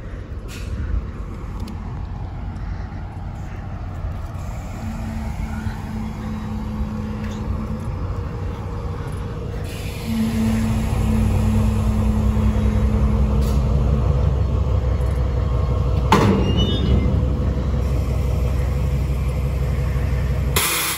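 Diesel freight locomotive's engine running with a low rumble and a held engine note, getting louder about halfway through, as it works at coupling on to its wagons. A sharp metallic clank comes about three-quarters of the way through, and a short burst of air brake hiss near the end.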